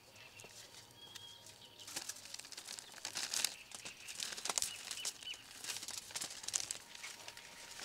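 Close hand-handling noises: rustling and crinkling of parchment paper and foil with quick clicks as raw marinated beef ribs are pressed into place, getting busier about two seconds in. Faint bird chirps sound now and then.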